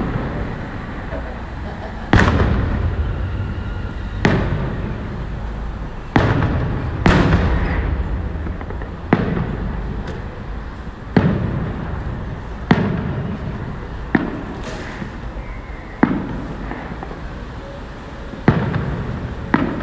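Distant aerial firework shells bursting, about eleven booms spaced roughly two seconds apart, each trailing off in a rolling echo.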